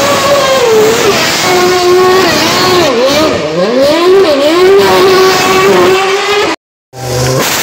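Formula One car engine held at high revs while the car spins donuts with the rear tyres smoking. The note dips and rises several times in the middle as the revs waver, then holds steady before the sound cuts out for a moment near the end.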